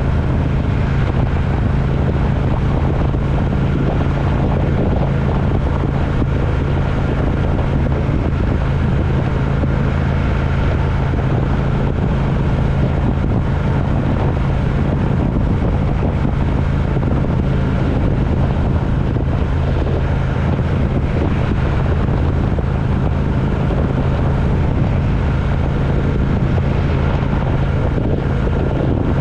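Steady drone of a road vehicle under way: an even engine hum mixed with wind and road noise, with no change in speed or pitch.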